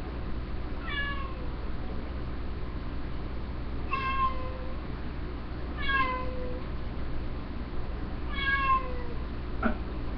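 Cat meowing four times, each a drawn-out cry falling in pitch, about two to three seconds apart: a pet crying because its owner has left the house. A short click near the end.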